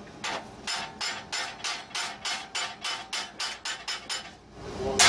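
Hand hammer striking a hot steel bar held in a vise, about fifteen quick, even blows at roughly three to four a second, coming slightly faster toward the end, then one louder blow right at the end. The blows are driven down from the top of a 90-degree bend to upset the corner.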